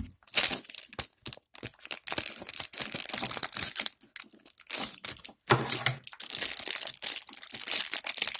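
Small plastic packaging crinkling and rustling in short, irregular crackles as it is opened and handled, with a louder rustle about five and a half seconds in.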